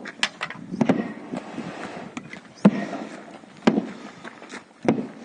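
Irregular sharp slaps and thwacks of carpets being cleaned by hand, several strikes spaced unevenly, the loudest about two and a half and three and a half seconds in.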